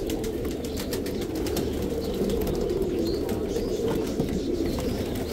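Many domestic pigeons cooing together in a steady, continuous low chorus.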